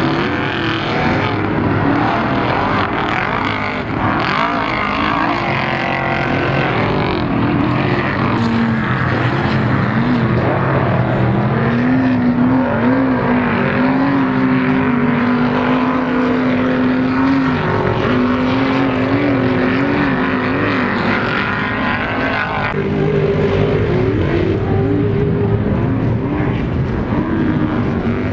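Off-road race vehicles' engines running hard, the pitch rising and falling with the throttle as they rev and shift. The sound changes abruptly about 23 seconds in.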